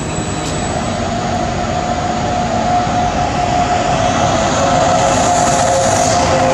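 Trenitalia E464 electric locomotive and its coaches pulling in: rolling noise growing louder, with a steady whine and a second tone that slowly falls in pitch as the train slows, and a hiss that builds about four seconds in.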